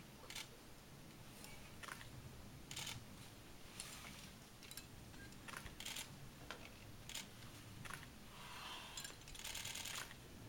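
Faint, irregular clicks and scuffs, about one a second, with a quick run of ticks near the end.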